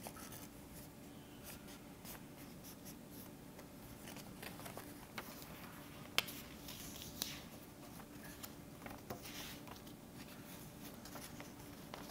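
Paper being folded and handled: faint rustling and creasing of the cut-out paper pieces of a sundial craft, with scattered soft clicks against a tabletop, over a low steady hum.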